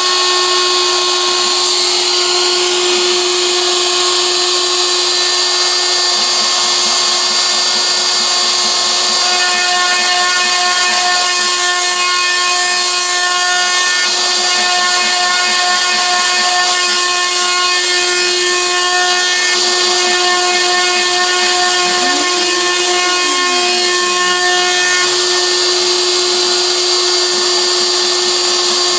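Carbide 3D router spindle on a Shapeoko CNC machine running at full speed with a steady high whine, its bit milling parts out of an acrylic sheet. A short low tone rises and falls about three quarters of the way through.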